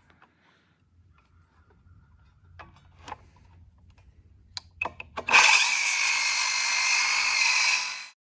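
A few handling clicks and taps, then a power drill spinning at full speed with a steady whine for about three seconds before stopping abruptly.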